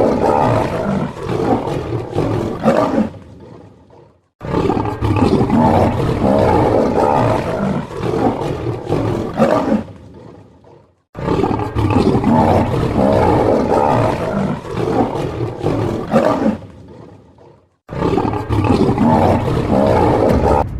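Lions roaring and growling in long bouts of four to six seconds. Each bout starts abruptly and fades away, with a second or so of near silence between them.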